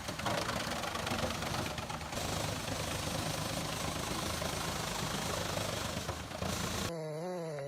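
Tractor-driven wood chipper running: the tractor engine and the chipper make a steady, dense mechanical noise. Near the end it cuts off abruptly and gives way to a quieter, wavering pitched sound.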